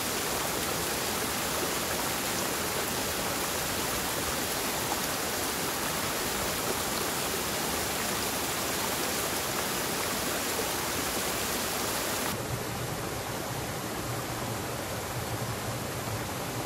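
Steady rush of flowing water, like a mountain stream or cascade. About three quarters of the way in, the sound turns abruptly duller, with a low hum underneath.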